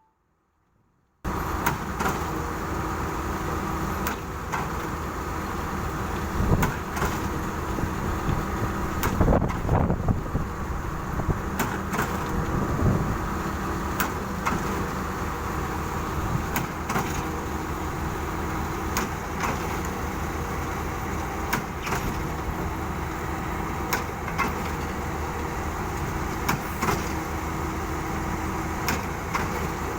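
Diesel engines of a concrete mixer truck and concrete pump running steadily during a pile pour, with scattered sharp knocks and clanks. There is a second of silence at the very start, then the engine sound cuts in.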